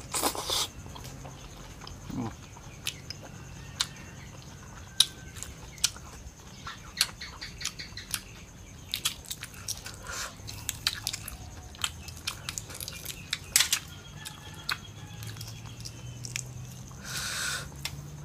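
Close-up eating of balut eggs: wet chewing, with scattered sharp clicks and small crackles as the eggshell is cracked and peeled away with the fingers.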